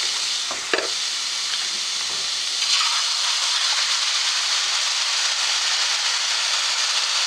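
Diced vegetables sizzling steadily in a hot frying pan. About two and a half seconds in, the sizzle grows louder and steamier as sauce is poured in.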